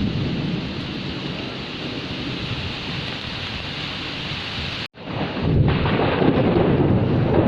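Heavy rain with a low rumble of thunder. Just before five seconds in, the sound cuts out for a split second, like an edit in a loop, then the rain comes back louder with a deeper rumble.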